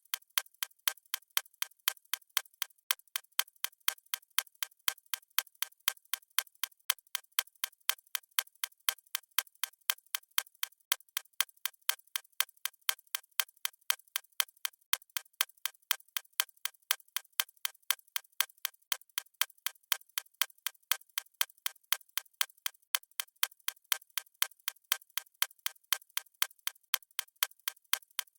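Clock-style ticking sound effect of a countdown timer: sharp, even ticks at about two a second, with no change in pace.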